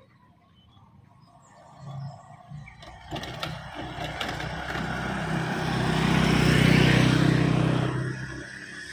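A motor vehicle drives past with its engine running: it rises out of near quiet, is loudest about two-thirds of the way through, then fades away. A few sharp clicks come a little before the middle.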